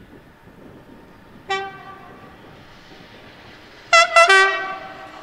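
Two-tone horn of an SNCF BB 25150-class electric locomotive (BB 25188) approaching with a container freight train: one short toot about a second and a half in, then a louder, longer blast sounding both notes about four seconds in.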